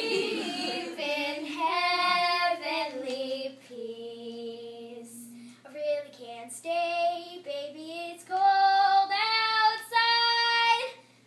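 Two girls singing a Christmas song together, unaccompanied, in phrases of long held notes with short breaks between.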